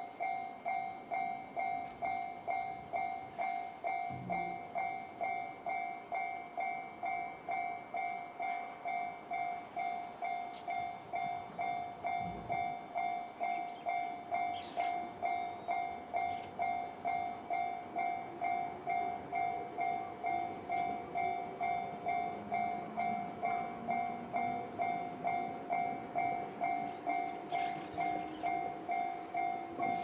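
Railway level-crossing bell, the JR standard electronic tone, ringing steadily at about two strokes a second: the crossing is warning of an approaching train. A faint hum rising in pitch comes in about two-thirds of the way through.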